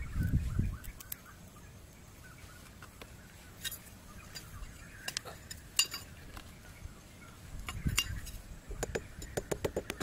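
Scattered light clicks and clinks of a plastic-bottle bird trap and a machete being handled on dry ground, with a dull thump at the start and a quick run of light taps, several a second, near the end.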